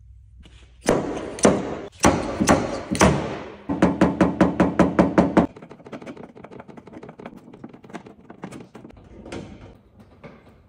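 Slide hammer on a glued pulling tab, its sliding weight slamming into the end stop: five heavy metal knocks with a short ring in the first three seconds, then a fast run of about a dozen lighter knocks as it pulls the dent out of the steel tailgate. After that come only faint, scattered ticks.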